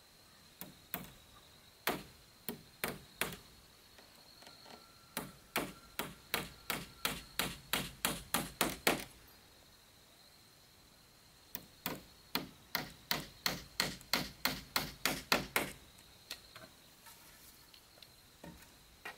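Hammer nailing a wooden frame together. A few spaced taps come first, then two runs of quick, even blows, each a few seconds long and growing louder toward its end.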